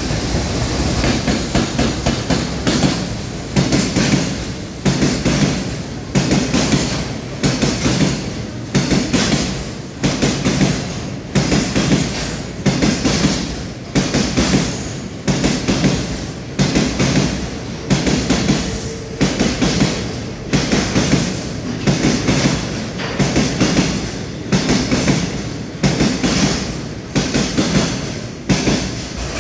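Wheels of a freight train's loaded oil tank wagons clattering over rail joints as the wagons roll past. The clatter comes as a steady rhythm of about one burst a second.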